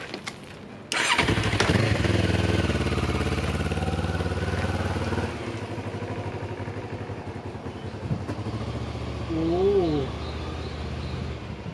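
Motorcycle engine starting abruptly about a second in, then running steadily; about halfway through it drops in level as the bike rides away.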